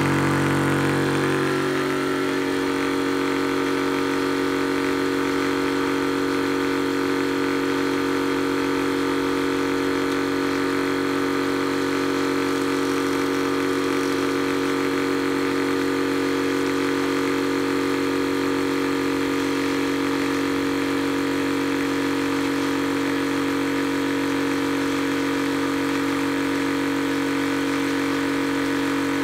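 Blue Zhongyan electric PCP high-pressure air compressor running steadily under load, an even motor and pump hum, while it fills a small air tank toward 4500 psi.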